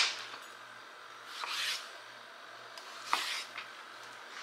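Kitchen items being handled on a counter: a sharp knock at the start, a short scraping rub about a second and a half in, and another knock with a brief scrape about three seconds in.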